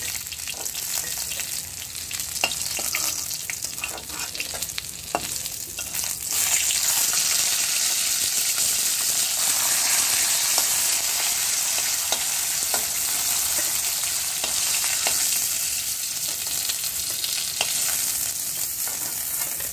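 Rohu fish pieces sizzling in hot mustard oil in a kadhai, with clicks and scrapes of a spatula against the pan as the fried pieces are lifted out. The sizzle grows louder and steadier about six seconds in.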